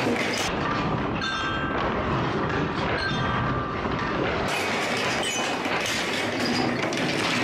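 Marbles rolling down the wavy plastic tracks of a Trix Track marble run: a continuous rolling rumble dotted with clicks and short ringing clinks as the marbles knock against the track and each other.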